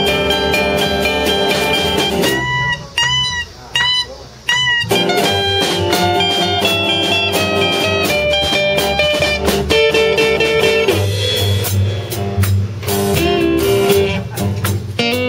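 Blues band playing an instrumental break, with guitar over bass and drums. A couple of seconds in, the band stops for four short, arching high notes, then comes back in.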